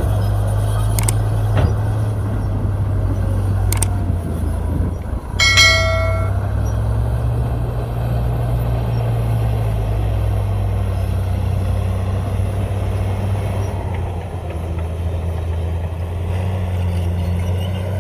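Diesel engine of heavy earthmoving machinery running steadily at a low hum, with a few clicks and one loud ringing metal clang about five seconds in.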